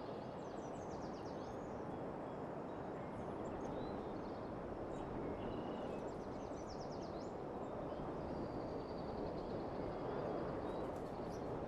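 Steady outdoor background noise with faint bird chirps and short trills scattered through it.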